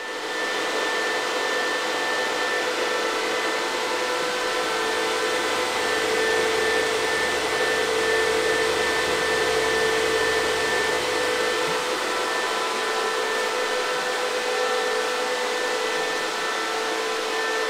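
Bitmain Antminer S19J Pro ASIC bitcoin miner's high-speed cooling fans running flat out: a steady rushing noise with a high-pitched fan whine held on one tone.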